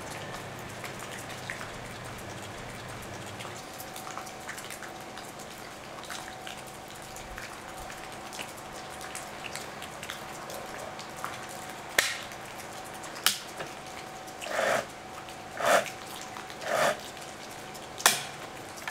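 Quiet outdoor background with faint scattered ticks and drips, then sharp metallic clicks and three short rasping swells about a second apart, from the saw chain and guide bar of a STIHL MS 241 chainsaw being handled to check them.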